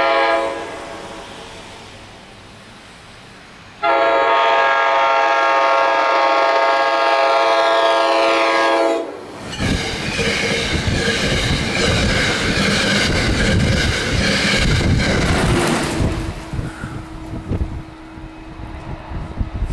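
SEPTA Regional Rail push-pull train sounding its multi-tone horn: the tail of one blast at the start, then a second long blast of about five seconds that drops in pitch as the train reaches the platform. The train then rushes past at speed with wheels clattering over rail joints for about seven seconds before fading away.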